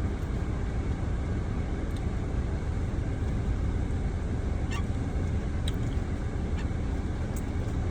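Steady low rumble inside a car's cabin, with a few faint clicks and taps.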